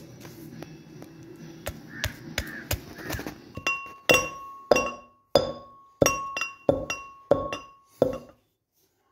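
Pestle pounding roasted spices in a metal mortar. First come quieter, irregular knocks on the coarse pieces. From about halfway come about seven sharp ringing metallic clinks, roughly two every 1.3 seconds, as the pestle strikes the now-powdered spice and the mortar rings.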